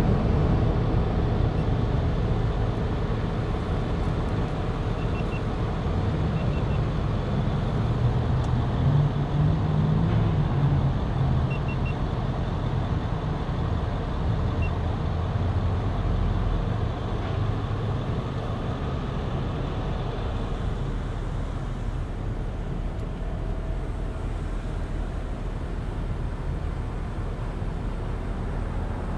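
A vehicle engine idling steadily close by as the vehicle creeps forward in a drive-thru line, with a low, even engine sound and a few faint short high beeps near the middle.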